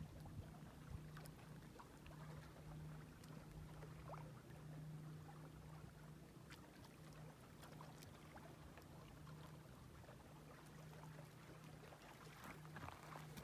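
Near silence with the faint, steady low hum of a distant motorboat on the lake, swelling and fading slightly.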